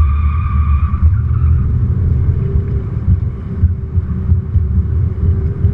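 Volkswagen Golf TDI's turbodiesel four-cylinder running hard, heard from inside the cabin over a heavy low rumble. The tyres squeal through the first second as the car comes out of a bend, then fade.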